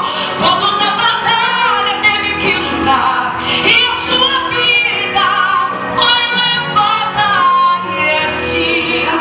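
A woman singing a worship song through a microphone over live instrumental accompaniment, with vibrato on her held notes.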